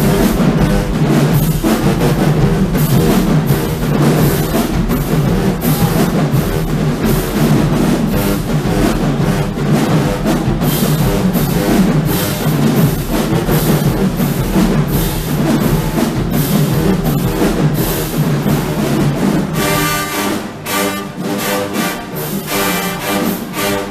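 Marching band playing: the drums keep a dense, steady beat under the brass, then near the end the drums thin out and the horns carry held notes.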